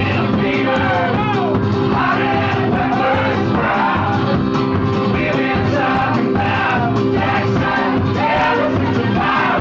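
Live band music with singing: steady amplified instruments under a sung vocal line that carries on throughout.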